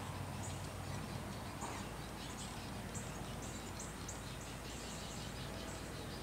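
Outdoor nature ambience: a steady low hum with a run of short, high chirps, several a second, starting about two seconds in.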